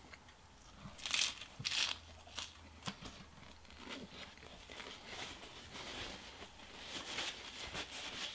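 Crisp tearing of fresh herb leaves close to the microphone, loudest twice between one and two seconds in, with chewing in between. A paper napkin crinkles near the end.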